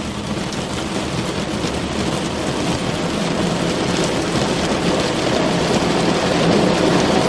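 Rain falling on a car's roof and windows, heard from inside the cabin as a steady dense drumming with faint scattered drop ticks, growing gradually louder.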